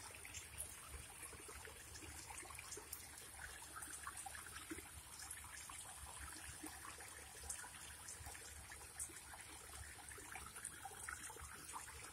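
Faint water trickling and dribbling at a pond, with many small irregular drips over a steady thin high hiss.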